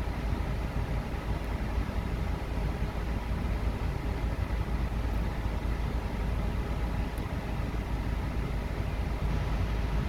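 Steady rush of air from the Mazda CX-7's dashboard air-conditioning vents with the engine idling underneath, heard inside the cabin. The A/C compressor clutch is engaged and the vent air is cooling down.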